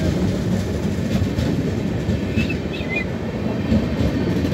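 Passenger train coaches rolling past close by: a steady low rumble with the wheels clicking over rail joints.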